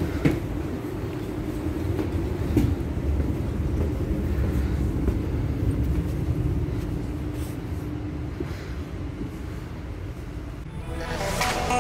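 Inside a double-decker passenger train carriage: a steady low rumble and hum from the train, with a couple of short knocks in the first few seconds. Music fades in near the end.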